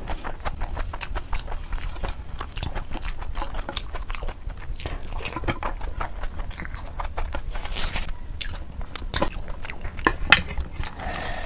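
Close-miked chewing and mouth sounds of someone eating biryani by hand, a dense run of short clicks, with one louder click near the end.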